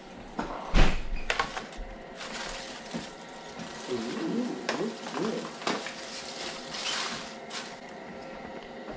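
Irregular crunches and clicks from biting into and handling crispy batter-fried snakehead pieces, with a sharp knock about a second in.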